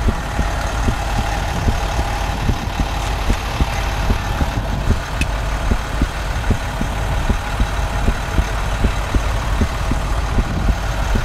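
A large truck engine idling steadily: an even low rumble with faint steady tones above it.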